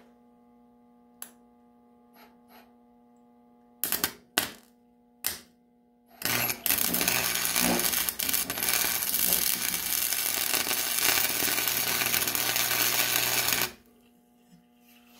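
MIG welder arc crackling as weld is laid onto a snapped flywheel bolt, to build it up so the bolt can be backed out. A few short arc strikes about four seconds in, then a continuous crackle of about seven seconds that cuts off near the end.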